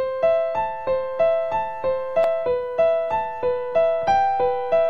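Background music: a keyboard playing a repeating pattern of plucked-sounding notes, about three a second, starting suddenly.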